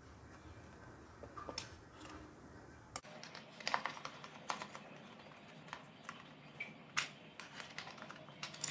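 Faint, irregular clicks and light scrapes of a knife blade run around the inside edge of a metal cake tin, loosening a baked cake from its sides; the clicks come mostly from about three seconds in.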